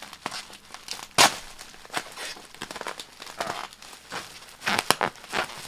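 Plastic bubble wrap being handled and pulled off a packed item, crinkling and rustling in irregular bursts, with a sharp crackle about a second in and another cluster near the end.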